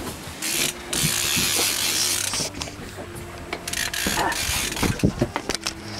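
Fishing reel ratcheting in short runs of clicks, over the steady low hum of an idling boat motor and surges of wind and water noise.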